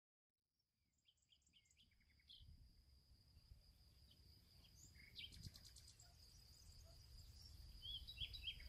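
Faint outdoor ambience of birds chirping and trilling, with a steady thin high whine and a low rumble underneath, fading in from silence.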